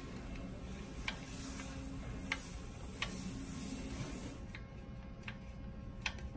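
A few scattered light clicks of a T-handle hex key turning and reseating in the pump housing bolts as they are snugged down by hand, over a steady low hum.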